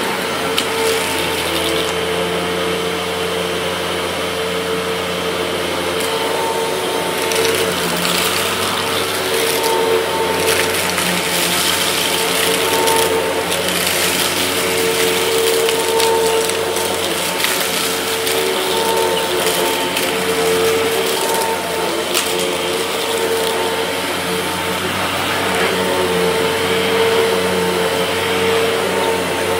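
Upright vacuum cleaner running steadily over a rug with a constant whine, and the rattling crackle of spilled chicken feed being sucked up, heaviest from about 7 to 16 seconds in.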